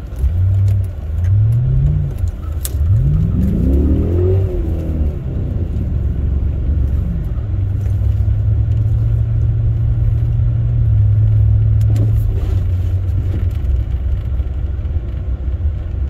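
Chrysler 300C's Hemi V8 heard from inside the cabin while driving: the engine note rises and falls twice in the first few seconds as the car accelerates and shifts, then settles into a steady drone at cruising speed, with a few light clicks.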